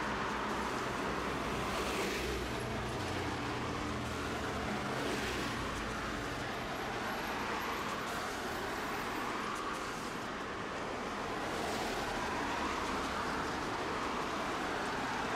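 Tosaden streetcar running along its track, heard from aboard: a steady rumble of wheels on rail, with a few brief louder swells about 2, 5, 8 and 12 seconds in.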